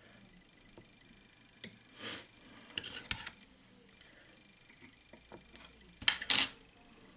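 Faint handling sounds of fly tying: small clicks and rustles as thread is wrapped onto a hook held in a vise, with two short scraping sounds about two and six seconds in, the second the loudest.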